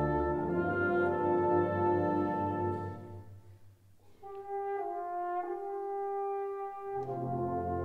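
Concert wind band playing a slow, sustained passage. A full chord with low brass fades away about three seconds in. A few held upper notes then move slowly on their own, and the full band with its low brass comes back in near the end.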